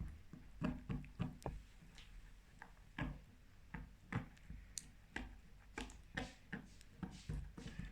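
Slime being stirred in its container: irregular light clicks and taps of the stirrer against the container, a few each second.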